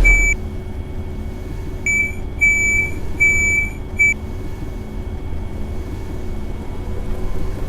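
Bus door warning beeps, one high tone: a short beep at the start, then four more from about two to four seconds in, the middle two longer. A low engine hum runs underneath.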